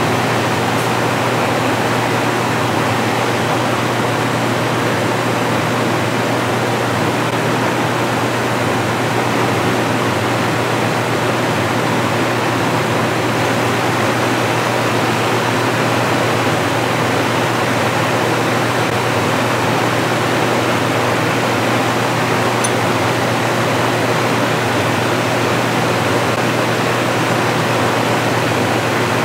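Large drum fan running: a steady rush of air over a constant low hum.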